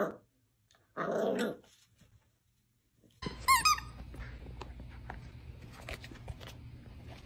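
A puppy barks twice, short at first, then a longer growling bark about a second in. After a pause, a dapple dachshund puppy chews a sneaker: faint clicks over a low hum, with a brief high squeak about halfway through.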